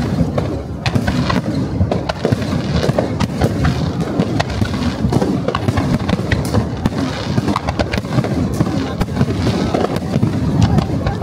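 Fireworks display: aerial shells bursting in a dense barrage, many bangs in quick succession overlapping with one another.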